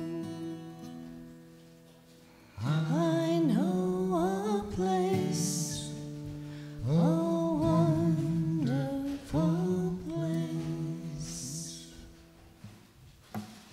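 A man singing a song to his own strummed acoustic guitar. A chord fades out, then the voice and guitar come back in for two phrases, about two and a half and seven seconds in, before dying away near the end with a couple of small knocks.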